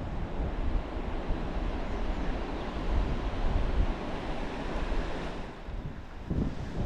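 Steady rush of water pouring through a dam spillway, with wind buffeting the microphone.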